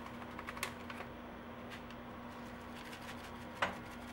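Dried oregano leaves crumbled between the fingers and sprinkled into a pot: a few faint dry crackles and ticks in the first second, over a steady low hum. A single sharp click comes a little before the end.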